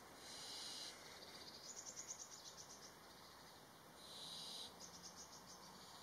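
Barn owlets calling: a short, high, breathy hiss about a quarter second in, then a fast run of high clicking pulses. The same hiss-then-pulses pattern comes again about four seconds in.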